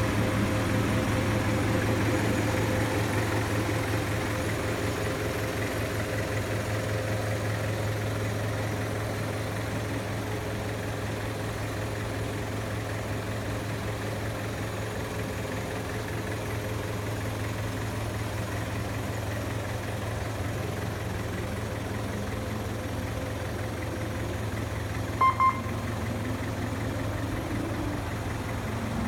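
A vehicle engine idling steadily, with two short, high electronic beeps near the end.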